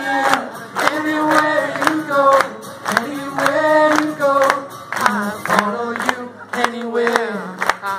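Chorus of a live acoustic pop song: sung vocals, with audience voices joining in, over a steadily strummed acoustic guitar.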